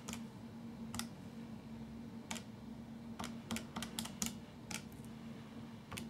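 Buttons of a Casio scientific calculator being pressed one at a time: about a dozen light, irregularly spaced clicks as a sum is keyed in and worked out.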